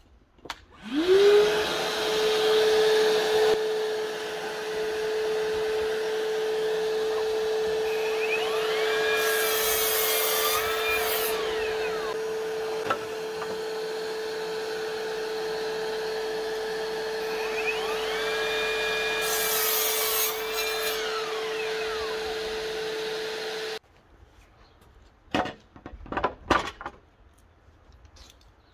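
Evolution 36V cordless miter saw making two cuts through a timber board, about 9 and 19 seconds in; each time the motor's pitch rises, sags under the cut and falls away. Under both cuts runs a steady motor whine that starts about a second in and cuts off sharply, followed by a few knocks as the board is handled.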